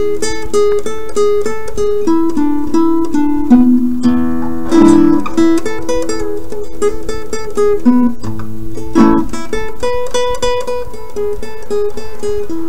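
Background music: an acoustic guitar picking a quick melody of single notes, with a strummed chord twice.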